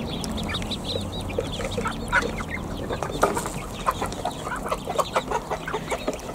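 Ducklings peeping in a rapid, continual chatter of short calls, busier in the second half.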